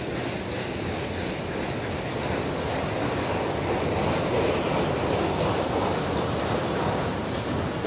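Freight train of autorack cars rolling past on steel rails, a steady running noise of wheels and cars that grows a little louder around the middle.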